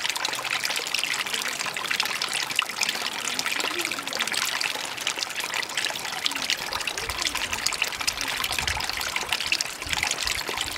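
Water trickling and running steadily, a continuous splashing hiss without a break.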